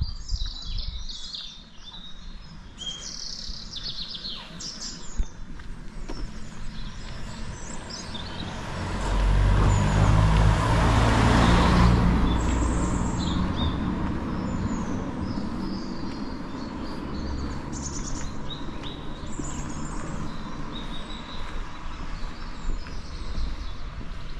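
Small birds chirping and tweeting. About halfway through, a car passes on the road: its engine and tyre noise swells over a couple of seconds and then fades away.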